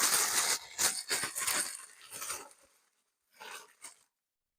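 Plastic food wrapper crinkling and rustling as it is handled, loudest in the first second and a half, then a few short, fainter rustles with quiet gaps between.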